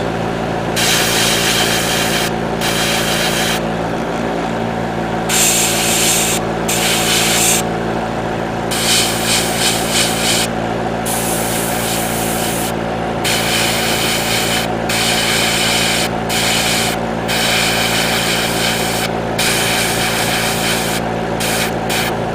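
Airbrush spraying yellow paint in about a dozen short bursts of one to two seconds each, the hiss starting and stopping as the trigger is worked. A steady hum runs beneath the bursts, typical of the airbrush's compressor.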